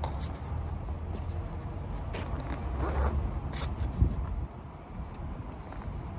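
Rustling and light clicking of a plastic bento container and clothing being handled, with one sharp knock about four seconds in, over a steady low rumble.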